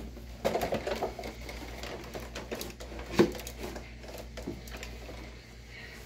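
Scattered knocks and clicks of things being handled and moved, with a flurry of them near the start and one sharp knock about three seconds in, over a faint steady low hum.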